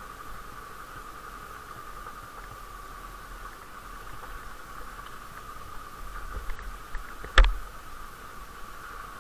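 Muffled, steady hiss and low rumble of a vehicle riding a rough dirt track, picked up by a mounted action camera. A few small knocks come near the end, then one sharp jolt about seven and a half seconds in.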